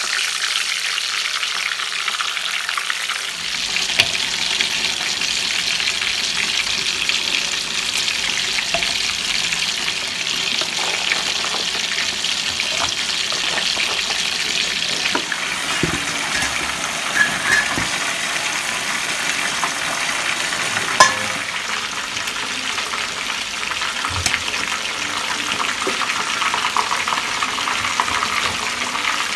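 Whole fish frying in hot oil in a stainless steel pan: a steady sizzle, with a few sharp clicks and knocks along the way. Near the end, water runs from a tap.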